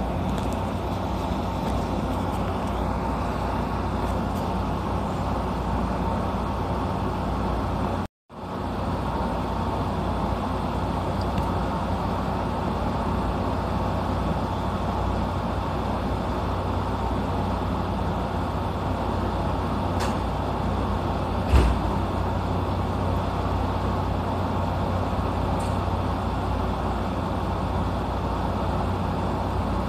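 Steady hum of a standing JR 115 series electric train idling at the platform with its equipment running. The sound cuts out for an instant about eight seconds in, and there is a single thump about two-thirds of the way through.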